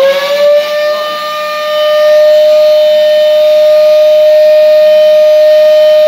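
Canister vacuum cleaner motor rising in pitch as it spins up, settling after about a second and a half into a loud, steady whine. It runs but draws no suction: a safety flap that snapped shut when the vacuum was dropped is blocking the airflow.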